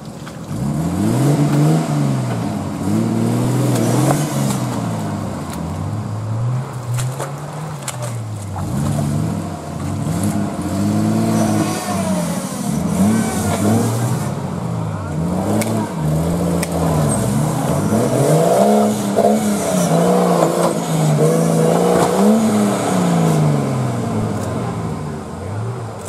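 Modified 4x4 off-road competition vehicle's engine revving hard, its pitch rising and falling again and again every second or two, while the vehicle is stuck in a deep mud rut under heavy load.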